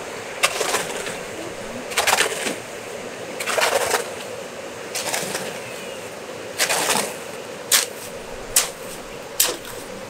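Wet mortar being mixed by hand: a tool scraping through the mix in regular strokes about every second and a half, followed near the end by three sharper clicks.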